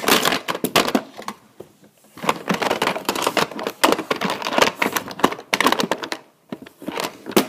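Handling noise close to the microphone: a rapid clatter of clicks and rustles as things are picked up and moved about, with two brief lulls, near two seconds in and again about six and a half seconds in.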